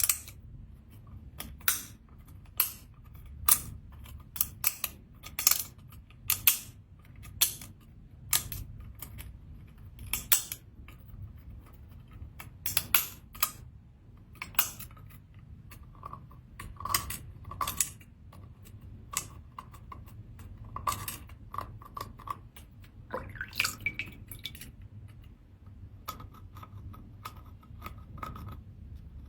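Seashells being handled during cleaning, making irregular sharp clicks and clinks as shell knocks against shell and hard surfaces, a few every second.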